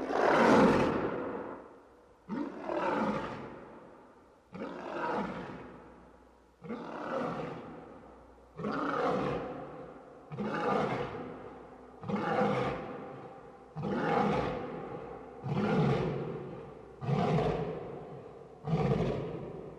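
A lion roaring: one long, loud roar, followed by a series of about ten shorter roars roughly two seconds apart, each fading away, the series coming slightly faster toward the end.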